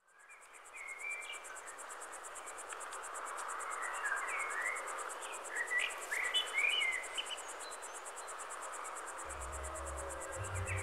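Crickets chirping in a steady, fast, even high trill, with small birds giving short scattered chirps, fading in over the first second. About nine seconds in, low steady music tones come in underneath.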